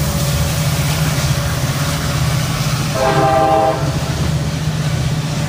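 Freight train rolling past with a steady low rumble, and the diesel locomotives' multi-note air horn sounding one short blast about three seconds in.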